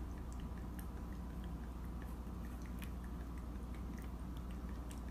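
Baby raccoon suckling on a milk bottle's nipple: faint, irregular smacking and clicking of its mouth, over a steady low hum.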